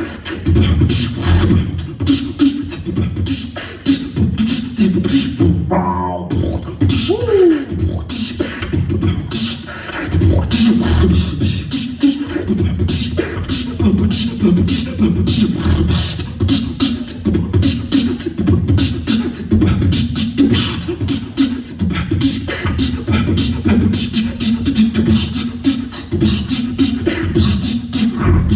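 Live human beatboxing: a continuous fast rhythm of mouth-made kick, snare and hi-hat sounds over heavy bass. There is a brief break about six seconds in, followed by a falling vocal swoop.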